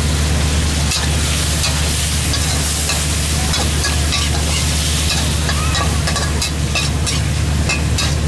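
Shrimp, squid and basil sizzling in a steel wok while a metal spatula scrapes and clacks against the pan in quick, irregular strokes, over a steady low hum.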